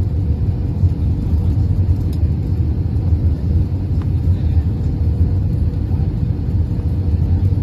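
Steady low rumble inside the cabin of an Airbus A320-232 on approach with flaps extended: rushing airflow and its two IAE V2500 turbofans at low power, with a faint steady hum above the rumble.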